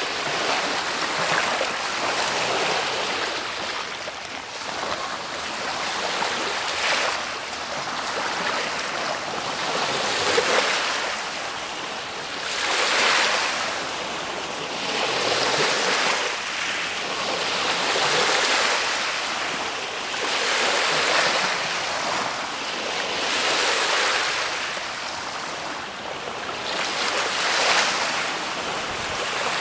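Ocean waves breaking and washing ashore, a steady surf that swells and eases every two to three seconds.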